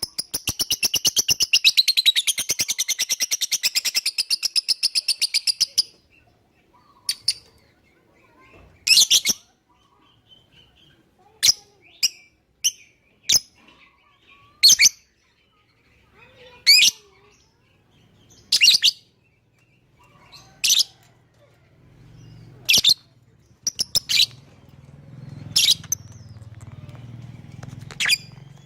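Lovebird calling: a fast, continuous chattering trill of high notes for about six seconds, then single high-pitched chirps roughly every two seconds.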